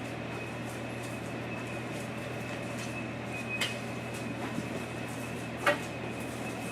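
Steady room tone, a hiss with a low hum and a faint high whine, broken by two short clicks about two seconds apart, the second louder.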